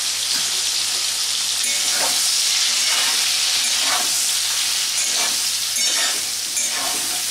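Soaked soya chunks sizzling in hot oil in a kadai, stirred and tossed with a metal spatula that scrapes the pan about once a second.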